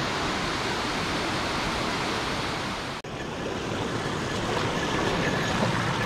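Mountain stream rushing over rocks and small cascades, a steady water noise. It breaks off for an instant about halfway through and comes back a little quieter, then swells slightly.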